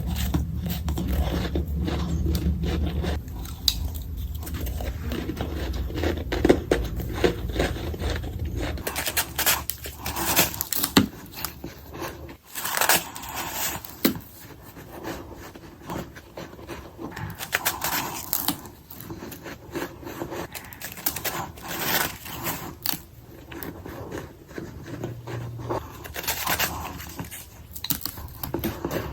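A person biting and crunching ice, with a rapid, irregular run of sharp crunches and scrapes. A low hum sits under the first several seconds.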